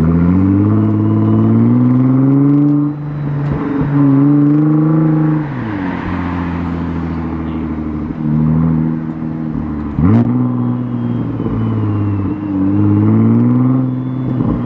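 Nissan GT-R R35's twin-turbo VR38 V6, breathing through a non-catted midpipe and aftermarket intakes, accelerating hard through the gears: the pitch climbs, drops at each shift and climbs again several times. About ten seconds in there is a quick, sharp rev.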